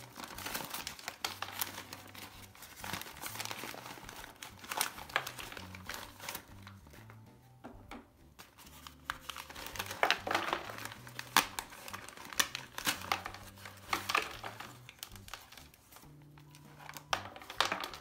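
Newspaper packing crinkling and rustling as hands pull it apart and unwrap a potted plant, in irregular bursts of sharp crackles that are loudest in the second half.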